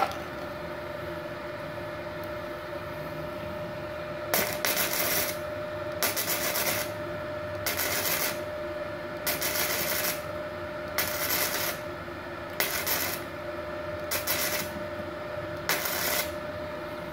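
Gasless flux-cored MIG welding arc on thin 1 mm steel box tube, crackling in eight short bursts of under a second each, starting about four seconds in. The welder is set at a low current of about 32 A, still on the high side for such thin tube. A steady tone runs underneath throughout.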